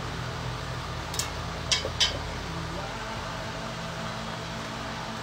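Three sharp metal clicks in quick succession about a second in: pliers gripping and twisting a stuck U-joint cap in a driveshaft yoke, which stays tight. A steady low hum runs underneath.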